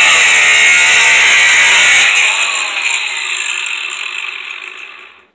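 Power tool cutting out a section of aluminum sliding-door track, running at full speed, then released about two seconds in and winding down over a few seconds to a stop.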